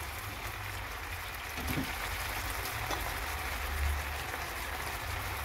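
Chicken wings sizzling and bubbling in pineapple juice in a frying pan: a steady hiss with a few faint pops.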